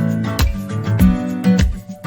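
Background music: a strummed acoustic guitar playing at a quick, steady rhythm.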